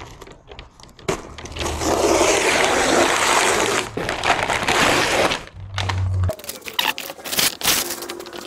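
Brown paper wrapping being torn and pulled off a long cardboard box: a loud, continuous ripping and rustling for about four seconds, then a run of scrapes and knocks as the cardboard box is handled.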